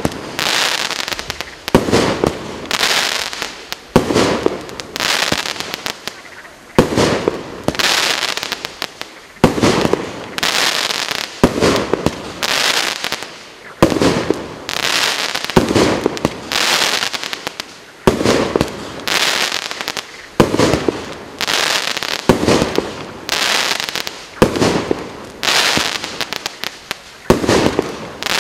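A 19-shot, 30 mm calibre consumer fireworks cake (GWM5033 'City Light') firing shot after shot, about one a second. Each shot is a sharp report trailing into a fizzing, crackling tail as the crackle effects break.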